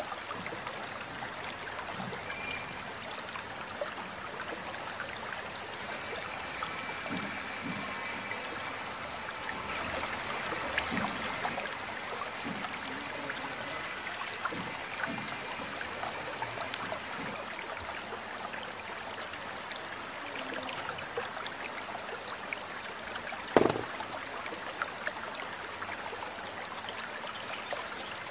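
Water running in a stream, a steady trickling rush, with a single sharp knock about 23 seconds in.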